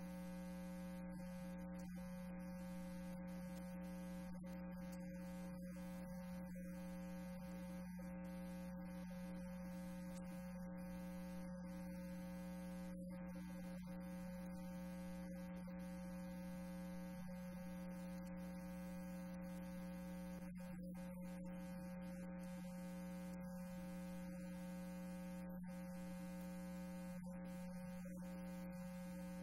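Steady electrical mains hum: a low, unchanging tone with many overtones.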